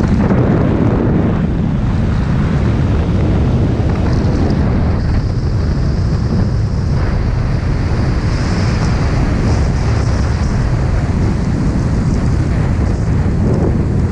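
Steady, loud rush of freefall wind buffeting a skydiver's camera microphone.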